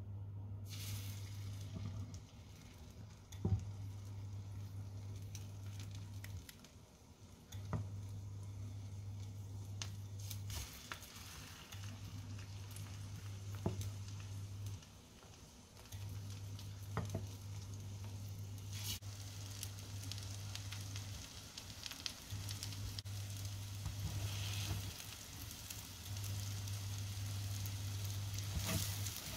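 Egg-dipped bread squares sizzling in hot oil in a frying pan. A few light knocks sound as pieces are set into the pan. A low hum from the glass-ceramic hob cuts in and out every few seconds.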